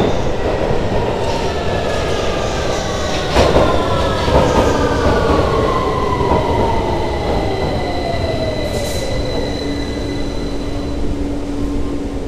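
London Underground 2009 stock train running into the platform and braking to a stop: the whine of its traction drive falls steadily in pitch as it slows, over the rumble of wheels on rail. A couple of knocks sound about three and four and a half seconds in.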